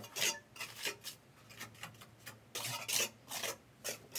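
Mason's trowel scraping and working wet cement mortar on brickwork around a PVC pipe fitting: a series of short, irregular scrapes, about three a second.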